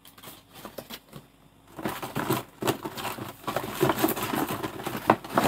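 Plastic bags and paper packaging rustling and crinkling as they are handled, with irregular clicks and taps. It is quiet at first and starts about two seconds in.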